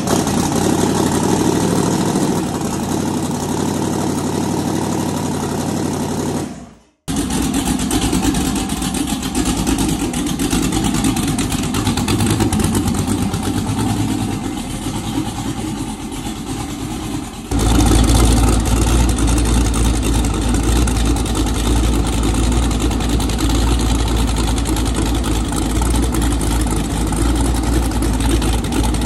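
LS small-block V8 running on its first startup after a head and cam change, with no coolant in it yet. The sound cuts out abruptly about seven seconds in, then engine running resumes, becoming louder and deeper about 17 seconds in.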